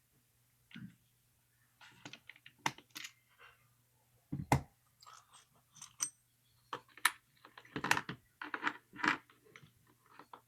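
Irregular small metal clicks, clinks and knocks of a padlock being handled and taken apart, with a single heavier knock about four and a half seconds in.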